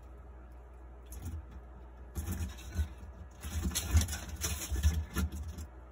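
Bearded dragon's claws scrabbling on newspaper and driftwood, rustling the paper in irregular scratchy bursts from about two seconds in until shortly before the end.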